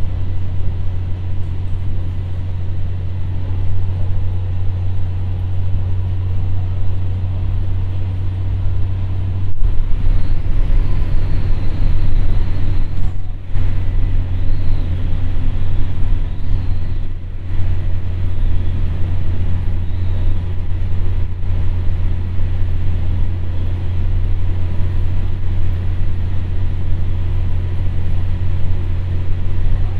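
Ibara Railway IRT355 diesel railcar under way, heard from inside the passenger cabin: a steady low engine drone over wheel and rail noise. The level dips briefly about thirteen and seventeen seconds in.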